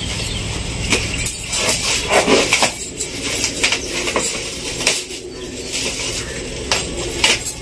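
Plastic bubble-wrap packaging rustling and crinkling as a parcel is handled and unwrapped, with many short crackles.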